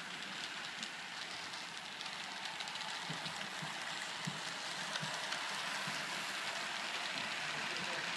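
HO scale model steam locomotives running on the layout track: a steady rushing rattle with many fine clicks, growing slightly louder.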